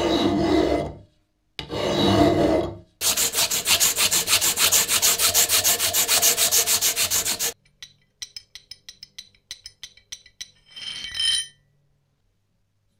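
Two long strokes of a hand file across the edge of a steel wrench part held in a vise, then fast, even back-and-forth sanding with a strip of abrasive cloth pulled around the bar, about six strokes a second for several seconds. After that comes a run of light metal clicks and one short scrape.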